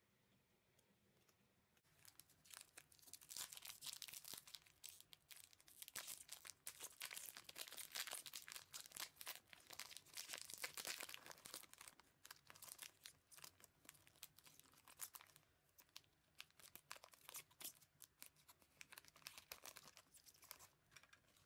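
Plastic wrapper of an Epoch 2020 J.League trading card pack being torn open and crinkled in the hands, a dense run of crackles starting about two seconds in, busiest in the first half and thinning to lighter rustling later.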